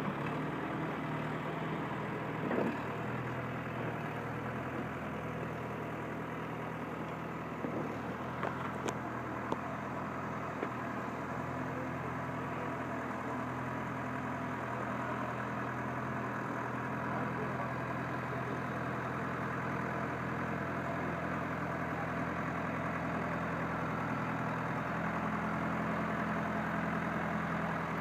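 A motor running steadily, with a sharp knock a few seconds in and a few light clicks a little later.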